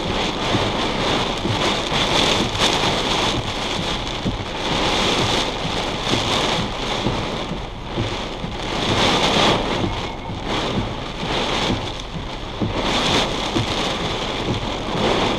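Heavy rain pouring down in sheets on a car's roof and windshield during a severe thunderstorm, its level swelling and easing every few seconds.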